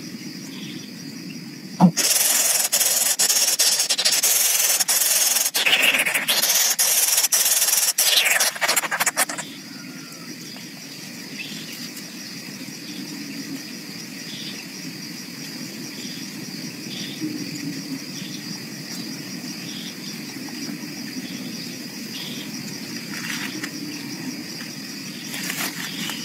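Loud rustling and scraping of dry grass stems, full of sharp crackles, from about two seconds in until about nine seconds in. After it, a steady quiet background with a faint short chirp repeating about once a second.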